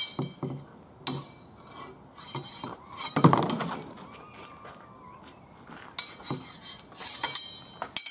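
Swords and round shields clashing in a sword-and-shield bout: a string of sharp metallic clinks and knocks, some with a short ring, in bursts. The loudest cluster is about three seconds in, and more come near the end.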